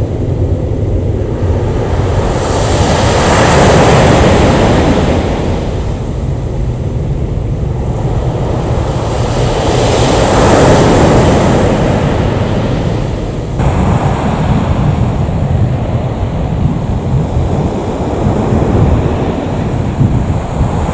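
Distant jet-engine roar of an Airbus A321 climbing away after takeoff, swelling and fading twice over a low rumble. About two-thirds of the way through it cuts abruptly to a steadier distant aircraft roar.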